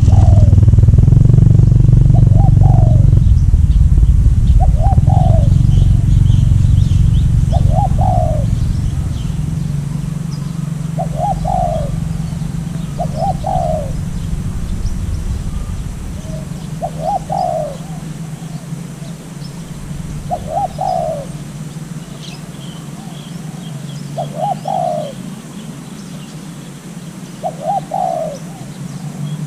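A decoy dove coos in short, evenly repeated notes, about one every two seconds. Under the first few coos a motorcycle engine runs loudly, then fades away over the first ten seconds, leaving a steady low hum. Faint high chirps from small birds come through in places.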